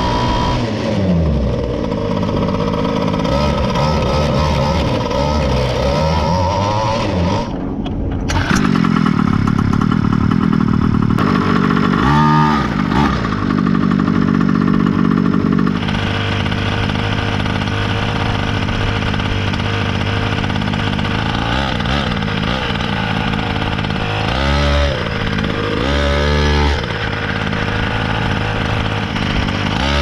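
Two-stroke gas engine of a Primal RC Raminator, a giant radio-controlled monster truck, running as the truck drives, with the revs rising and falling sharply about 12 seconds in and twice near the end. The sound changes abruptly about 8 and 16 seconds in.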